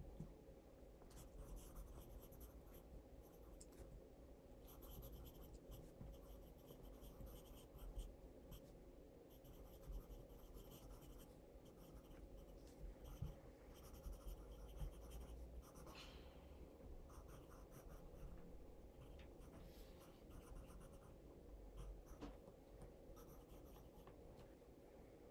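Faint pencil scratching on notebook paper in short, irregular strokes, over quiet room tone.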